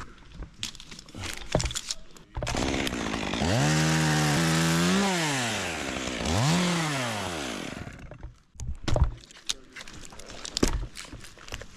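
Chainsaw engine revved up twice, its pitch climbing, holding briefly and dropping each time, before it stops. Scattered sharp knocks and clatter come before and after.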